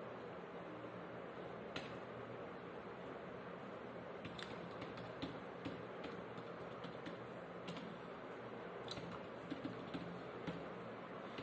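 Irregular keystrokes on a computer keyboard: scattered single clicks, mostly a second or more apart, over a faint steady background hiss.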